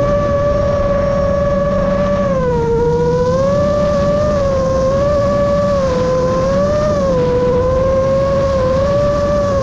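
Motors and propellers of a Chimera 7.5 FPV quadcopter whining in flight over a rush of air. The pitch dips about two and a half seconds in, then keeps rising and falling as the throttle changes.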